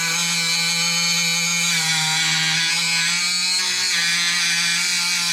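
Dremel rotary tool running with a steady high-pitched whine as its small wheel grinds down the edges of a part so a stud will go in, worked with very light pressure.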